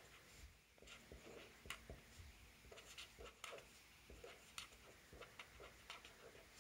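Faint scratching of a pen drawing on paper, in short irregular strokes with small ticks between them.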